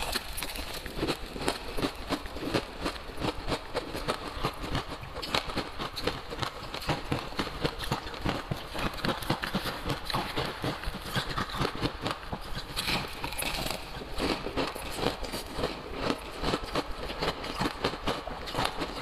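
Close-up crunching of crushed coloured ice being chewed, with a metal spoon scooping through the ice in a plastic jug. The crunches come thick and irregular throughout.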